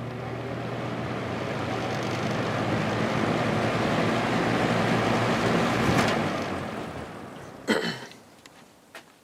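Vintage Galaxy box fan with a plastic Marco motor starting up on its low speed: the rush of air from the blades swells steadily for about six seconds, then falls away. A sharp knock comes near the end, followed by a small click.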